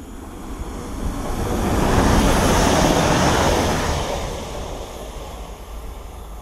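Diesel passenger train running through the station on unelectrified track. The rush of wheels on rails and engine noise swells to a loud peak about two to three seconds in, then fades as it moves away.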